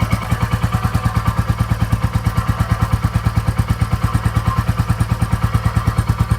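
Motorcycle engine idling close to the exhaust, a steady even pulsing of about eight beats a second. Under it is a subtle vibration from the exhaust heat-shield cover, which the owner finds to be the source of an intermittent noise; no screw on it is loose.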